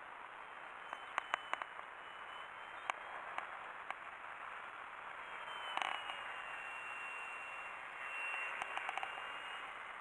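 Battery-electric motor and propeller of a small foam-board RC plane whining high overhead: a thin high whine that drops slightly in pitch about halfway through and grows louder near the end. Several sharp clicks are heard, mostly in the first half.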